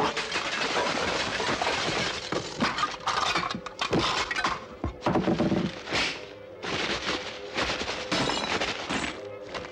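Dense, fast clatter and crunching of small hard objects: metal kitchenware, glass and paper being mashed and ground together, with many sharp knocks and breaking sounds in quick succession. A steady pitched tone comes back in near the end.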